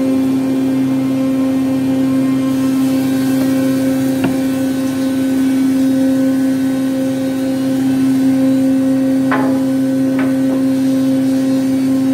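Woodworking machinery running steadily: a four-sided planer with its dust extraction, giving an even, loud hum. A few light knocks sound over it, one about four seconds in and two close together near the end.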